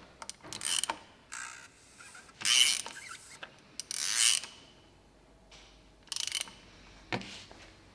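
A hand ratchet with a 27 mm socket clicking in several short bursts a second or two apart as its handle is swung back and forth, loosening a plastic oil filter housing cap.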